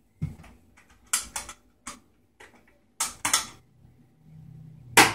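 Aluminium CanCooker lid being fitted and its latch clamps fastened: a series of light metal clicks and clanks, with a louder clank near the end.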